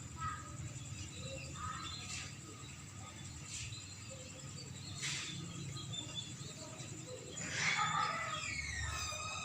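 Swiftlets twittering in scattered short chirps, with a denser run of falling calls near the end, over a steady high-pitched tone.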